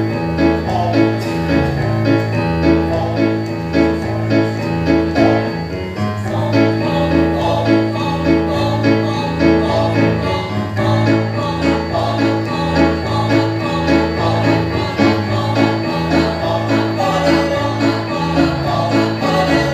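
Choir singing over electronic keyboard accompaniment with a steady, evenly repeating bass beat.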